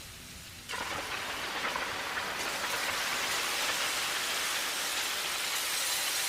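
Electronic sound effect: a rushing hiss of noise that cuts in suddenly under a second in and slowly grows louder, over a faint low hum.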